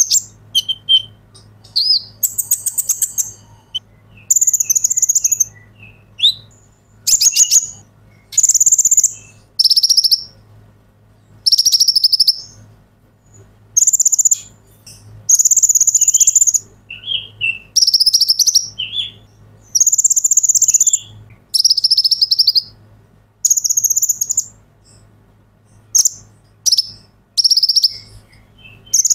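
Caged male sunbird (kolibri ninja) singing: a run of high, rapid chirping phrases, each about a second long with short pauses between, repeated over and over.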